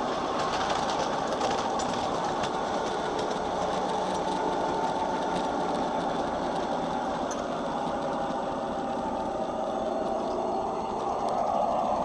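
Home-built 5-inch-gauge model of a MaK 1200 diesel locomotive running along garden-railway track: a steady mechanical running noise from its drive and wheels on the rails, with light clicks now and then.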